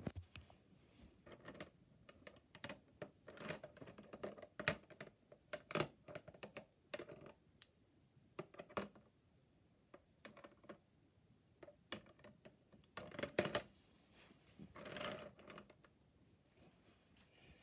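Plastic LEGO Technic beams clicking and clattering against one another and the baseplate as a jointed whip is handled and swung, in irregular taps with a couple of longer rattles later on.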